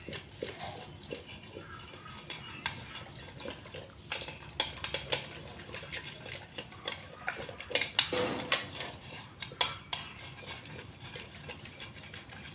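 Pit bull eating from a stainless steel bowl: lapping and chewing, with the metal bowl clinking and knocking over and over, the loudest clatter about eight seconds in.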